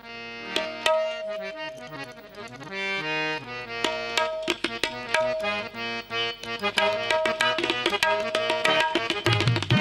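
Qawwali instrumental opening: a harmonium playing a held, stepping melody over sharp tabla strokes, the drumming coming thicker in the last few seconds.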